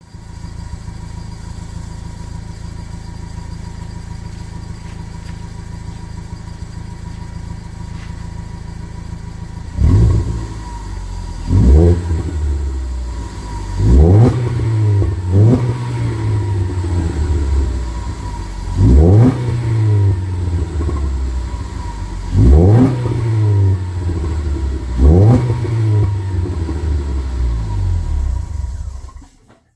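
2012 Ford Focus four-cylinder engine through a Magnaflow cat-back exhaust, idling steadily for about ten seconds, then revved sharply seven times, each rev falling back to idle. Each rev is capped at about 3500 rpm by the car's stock stationary rev limiter.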